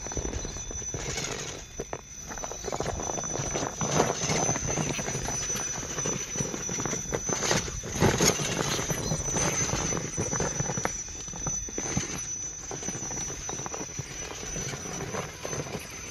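Redcat Rock Slide 1/8-scale RC rock crawler with brushless sensored motors climbing a steep rock face. The motors drive in spurts while the tyres and chassis scrabble and knock irregularly on rock, loudest about four seconds in and again around eight seconds. A steady high whine runs underneath.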